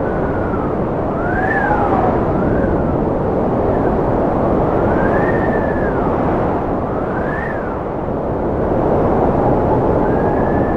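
Strong wind blowing steadily, with whistling tones that rise and fall in pitch every second or two.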